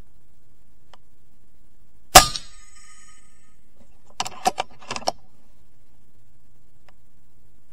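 A single sharp shot from an FX Impact MkII PCP air rifle about two seconds in, with a metallic ring trailing off for about a second. A quick run of four or five clicks follows at four to five seconds, fitting the rifle's side lever being cycled to chamber the next pellet.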